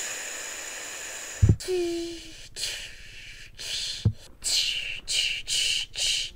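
A person making breathy hissing and puffing sounds with the mouth in a run of short bursts, about half a second each, through the second half. A few dull thumps from handling, and one brief low hum about 2 s in.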